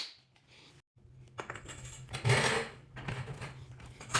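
Light metallic clicks and clinks of garage door spring hardware being handled, with a louder scraping rustle about two seconds in. The sound drops out briefly about a second in.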